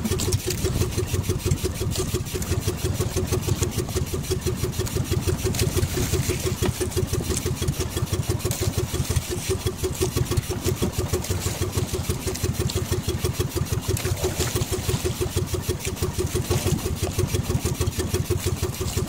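Engine of a motorized outrigger banca (fishing boat) running steadily with a rapid, even putter.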